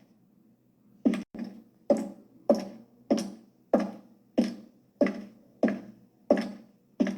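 High-heeled shoes walking on a hard floor: sharp heel clicks at an even pace of about three steps every two seconds, each with a short ringing echo. The steps begin about a second in, after a brief pause.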